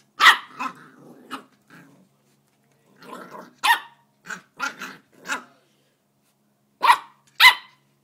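Welsh corgi puppy play-barking in about ten short, sharp barks, with low growls between some of them.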